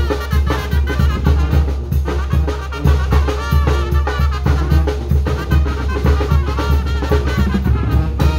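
Brass band music with a steady drum beat, bass drum and snare, over a continuous deep bass line.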